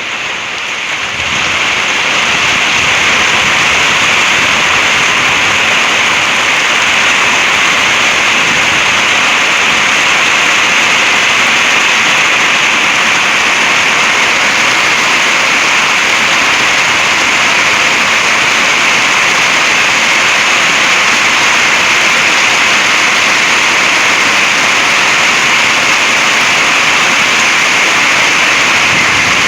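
Heavy thunderstorm rain pouring down. It swells about a second in to a loud, steady hiss.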